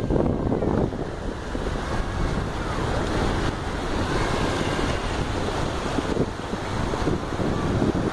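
Small ocean waves breaking and washing in over shallow sand, with wind buffeting the phone's microphone.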